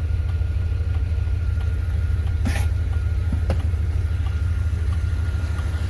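Van engine idling with a steady low rumble and a faint constant high whine, with a short rustle about two and a half seconds in and a light click a second later.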